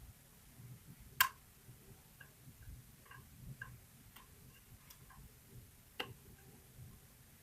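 Pin-tumbler lock being picked: faint small metallic clicks and taps of the pick working the pins, with two sharper clicks, about a second in and about six seconds in.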